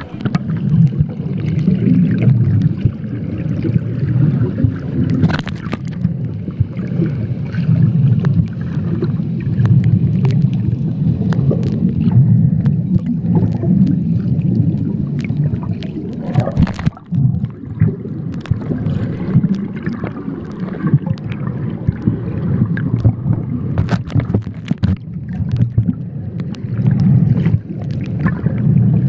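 Muffled underwater sound picked up by a camera filming below the surface: a steady low rumble of moving water with scattered clicks and crackles.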